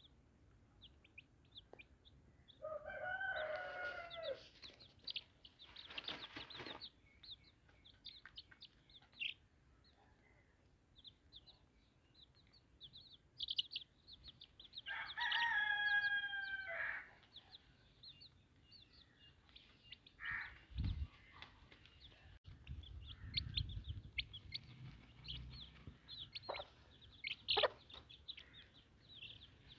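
Chicks peeping in short, high cheeps throughout, and a rooster crowing twice, about three seconds in and again about fifteen seconds in, each crow about two seconds long.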